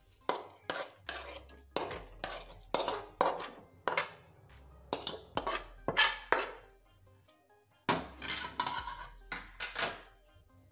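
Steel spoon scraping and clinking against a steel pan, repeated short strokes about twice a second with a brief pause in the middle, as thick cooked semolina mixture is scraped out onto a steel plate.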